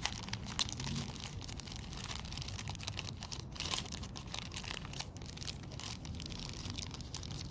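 Plastic crinkling and crackling as windshield repair kit parts are handled, with dense irregular clicks.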